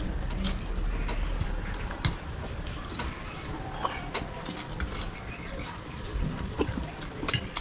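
Two people eating spicy chowmein and momos quickly: noodles slurped and chewed, with metal forks and spoons clicking against the plates.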